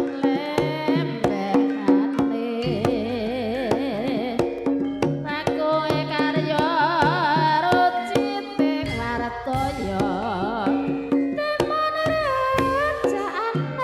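Campursari music: Javanese kendang hand-drum patterns over steady held chords, with a wavering vocal melody in the middle and again near the end.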